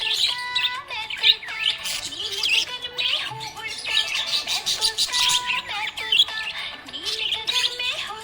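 Budgerigar chirping and warbling in quick, busy runs over background music.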